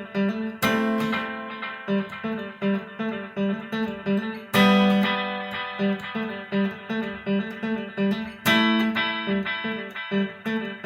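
Electric guitar played through tape deck recording and playback heads: a steady pattern of picked notes about three a second, broken by louder strummed chords about a second in, midway and near the end.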